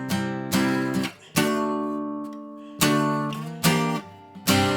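Acoustic guitar strumming single chords, each let ring and die away before the next: about six strums, with longer gaps near the middle.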